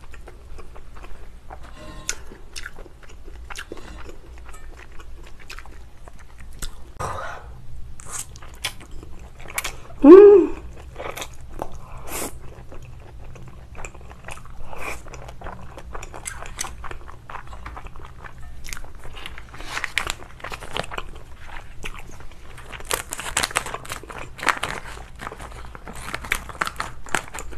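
Close-miked eating: a person chewing, slurping and crunching spicy cold noodles with cucumber and kimchi, with many small wet smacks and clicks. About ten seconds in comes one short, loud hum of the voice, and near the end scissors snip the noodles in a metal bowl.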